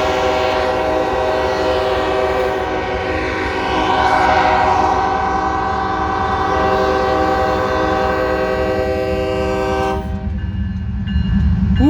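Several locomotive air horns blowing together in one long held chord over a low rumble. Some of the horns cut off about ten seconds in while others keep sounding.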